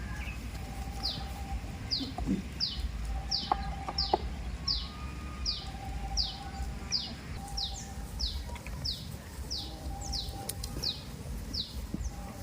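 A bird calling with a short, high, falling note repeated steadily about two to three times a second, over a low rumbling background.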